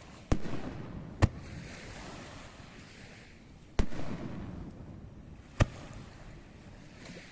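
Aerial firework shells bursting: four sharp booms, each followed by a rolling rumble and echo.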